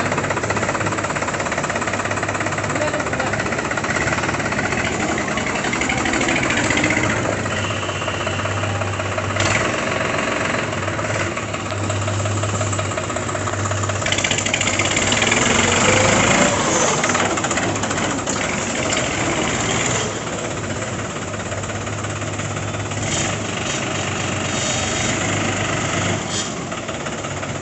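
New Holland diesel tractor engine running with a steady, knocking clatter, getting louder about halfway through as the tractor is driven.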